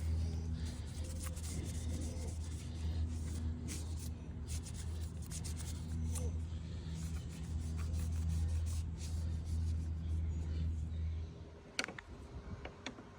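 Electric sander running and abrading a curb-rashed wheel rim with a steady hum and a scratchy rubbing, switched off about 11 seconds in, followed by a few sharp clicks.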